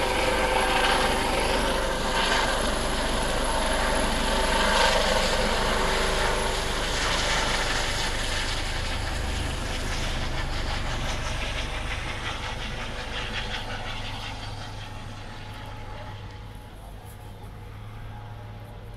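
US Coast Guard MH-65 Dolphin helicopter flying past: its rotor and turbine noise with a steady whine is loud at first, then fades gradually over the last several seconds as it moves away.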